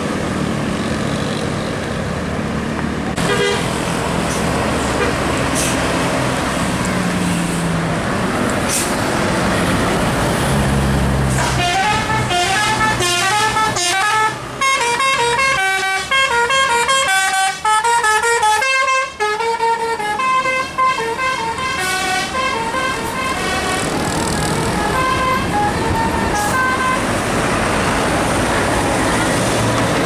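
Tour-bus engines and passing traffic, then a bus's musical "telolet" air horn plays a fast tune of short stepped notes, starting about eleven seconds in and stopping a few seconds before the end, over the engine noise.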